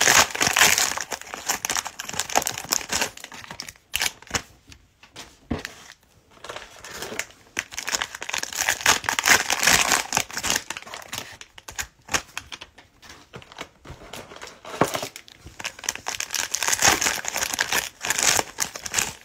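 Foil-plastic wrapper of a Panini Mosaic football card cello pack crinkling and tearing as it is pulled open by hand, in several bursts with a few sharp clicks in between.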